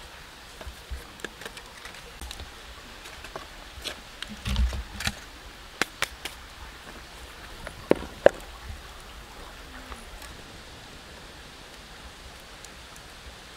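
Steady outdoor hiss with scattered sharp clicks and knocks: a small twig fire crackling at first, then handling noises of food preparation, with a dull thud about four and a half seconds in and the loudest pair of knocks about eight seconds in.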